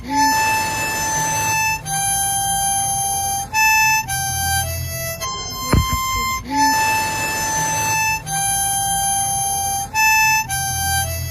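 Background music: a slow melody of long held notes on a reedy lead instrument, the phrase repeating about six seconds in, opened by a single low hit.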